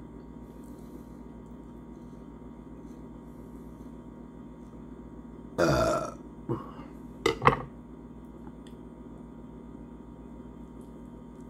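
A man burps loudly about halfway through, one burp of about half a second that falls in pitch. It is followed by a short smaller sound and then two quick sharp clicks, over a steady low room hum.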